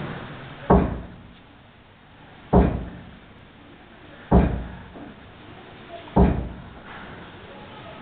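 Four heavy thumps, evenly spaced a little under two seconds apart, each dying away quickly over a faint low background.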